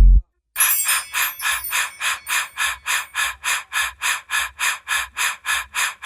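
Background music from an electronic hip-hop track: a heavy bass hit dies away at the start, then a breathy, panting-like beat pulses evenly about four times a second.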